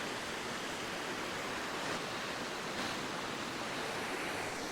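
Waterfall and cascading stream water rushing steadily over rocks, an even hiss.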